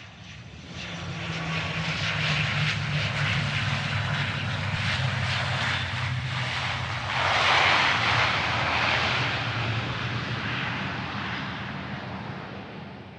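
Airplane coming in to land, passing close by: its engine noise swells in, is loudest about seven to nine seconds in, then fades away.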